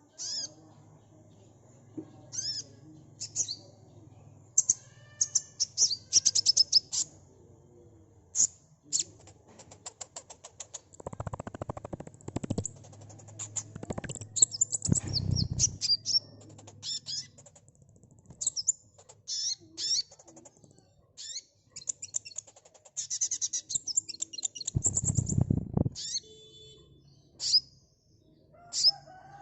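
Sunbird singing: rapid high-pitched chirps, twitters and fast trills in irregular runs. There are a few louder rustling bursts around the middle and near the end.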